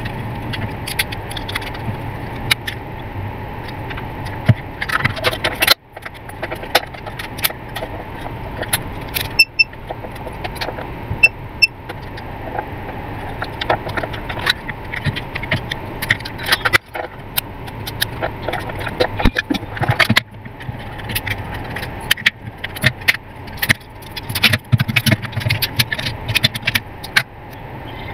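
Plastic casing parts, circuit board and small screws of a digital clamp meter clicking, rattling and scraping as it is taken apart by hand, over a steady hum.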